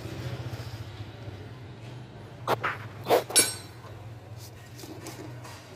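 Ratchet and socket on the metal oil filter housing cap of a diesel engine: four sharp metallic clinks and knocks in the middle, then fainter ticks, as the cap is worked loose. A steady low hum runs underneath.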